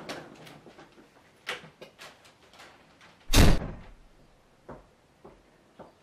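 Apartment front door slammed shut about three seconds in, one loud, heavy bang with a short ringing tail, after a run of small clicks and knocks; a few faint knocks follow.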